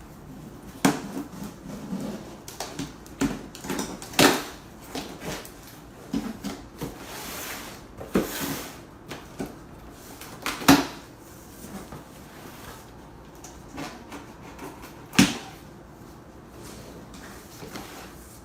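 Cardboard shipping box being opened and handled: irregular knocks and thumps of the flaps and box, with rustling and a longer scraping rustle about seven to eight and a half seconds in.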